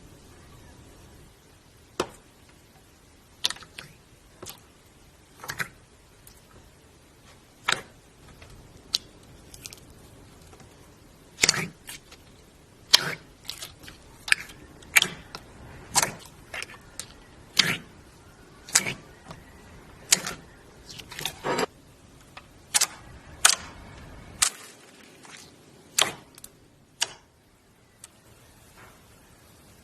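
Slime being pressed and stretched by hand, giving a series of sharp, irregular pops and clicks, sparse at first and coming thick and fast in the middle.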